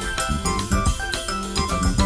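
Instrumental background music with a regular drum beat under held and short struck notes.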